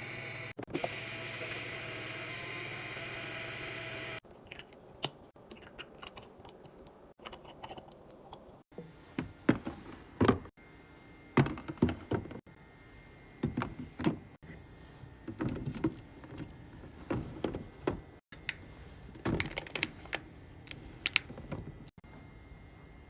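Irregular clicks, clinks and knocks of packaged drinks and snacks being handled and set into a mini fridge during a restock, some in quick clusters. The first four seconds are a steady hiss before it cuts to the clicking.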